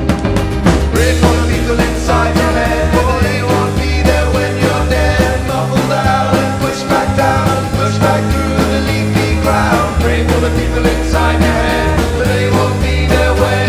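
Rock band playing live: electric guitars, bass and drums, with a man singing lead and others joining in on backing vocals.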